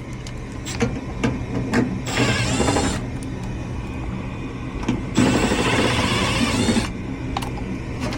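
Goodman gas furnace trying to fire: a steady motor hum with a few clicks, and two bursts of rushing noise, the first about a second long, the second nearly two seconds. The furnace's burners and orifices are rusted, and it fails to light.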